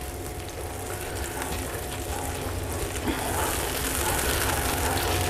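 Butter and hot sauce sizzling and crackling in a pan on a hot grill, growing louder, over a steady low hum.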